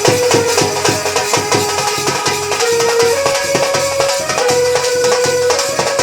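Dance music: drums beating a steady rhythm under a held melody line that steps between a few notes.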